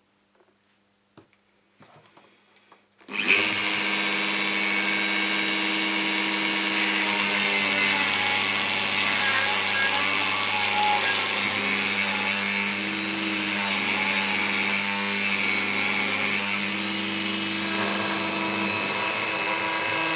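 Rotary multitool on a flexible shaft starting up about three seconds in and cutting a ring around the top of a metal capacitor can with a small cut-off disc: a steady high whine over grinding noise. The pitch wavers slightly as the disc bites.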